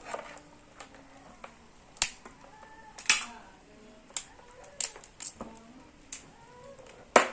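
A string of about seven sharp, irregular clicks and snaps, each cutting off quickly.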